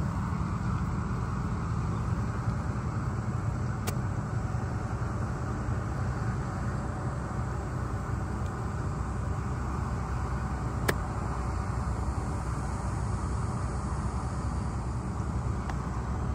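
A golf club strikes the ball on a short chip shot with one sharp click about eleven seconds in. A fainter click comes about four seconds in, over a steady low outdoor rumble.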